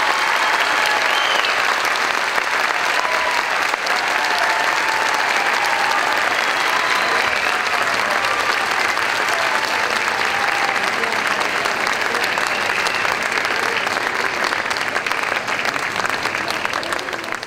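Audience applauding steadily after a dance performance, with a few voices calling out over the clapping; the applause begins to die away near the end.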